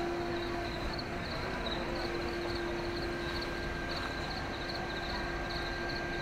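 Outdoor night-time city ambience: a steady low background rumble with a constant hum, over which a regular high-pitched pulsing repeats about three times a second.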